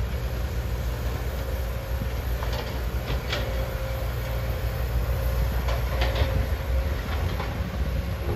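Komatsu PC200 hydraulic excavator running steadily under load as it digs, lifts and swings a full bucket of soil, with its diesel engine's low rumble and a few short clanks and scrapes from the bucket and boom.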